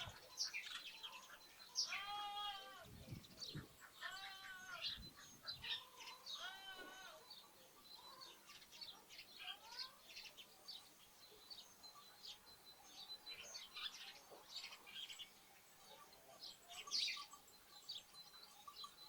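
A lamb bleating three times, about two seconds apart, in the first several seconds. House sparrows and other small birds chirp throughout.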